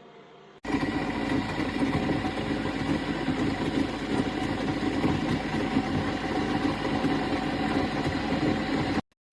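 Keurig K-Cafe coffee maker's pump humming steadily while it brews a K-cup. The hum starts suddenly about half a second in and cuts off just before the end.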